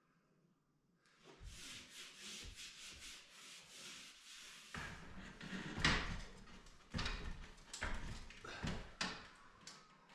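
Drywall joint tape being pulled off the roll and rubbed down onto plasterboard seams by hand. A quick run of short rasping pulls comes first, then several louder separate rubs and knocks as the tape and tools are handled.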